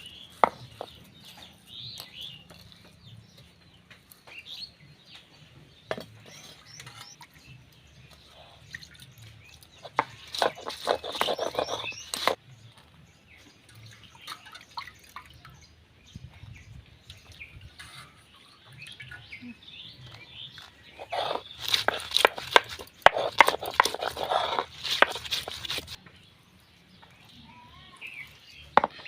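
Small birds chirping in the background, with two loud spells of rapid clicks and rasps, one about ten seconds in and a longer one about twenty seconds in.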